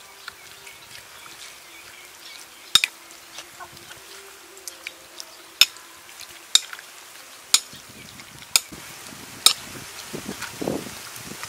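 Metal spoon tossing raw beef larb in a glass bowl: wet squelching of the meat, blood and herbs, with a sharp clink of the spoon against the glass every second or so. A louder wet squelch comes near the end.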